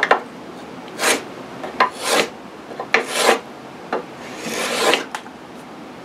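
Small cast edge plane, an import copy of the Woodpeckers edge plane, cutting along the edge of a hardwood board in four quick strokes, each a short scraping hiss of a shaving coming off, the last stroke longer. Light clicks fall between the strokes.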